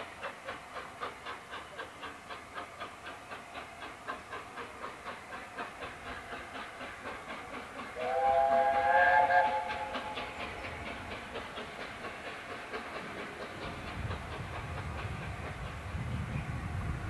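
Train wheels clicking over rail joints in a steady rhythm, about three or four beats a second. About halfway through, a steam locomotive's whistle sounds for about two seconds. A low rumble builds near the end.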